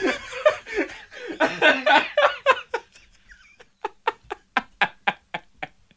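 Hard laughter: about three seconds of uneven laughing, then after a short lull a run of short, evenly spaced breathy laughs, about four a second, that fade out.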